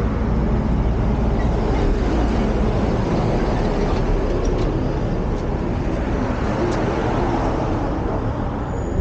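Road traffic on a city street: a steady rumble of passing vehicles, with a box truck going by.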